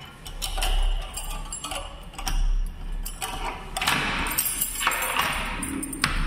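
Keys jangling and clicking against a padlock and the metal door latch as the lock is worked open, with scattered sharp metallic clinks and knocks.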